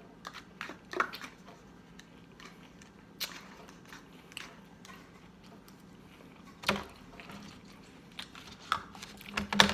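Close-miked eating: chewing and wet mouth sounds with scattered short clicks and smacks.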